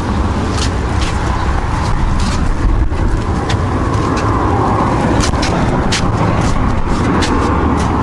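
Steady low rumble of wind on the microphone, with footsteps on brick paving about two a second.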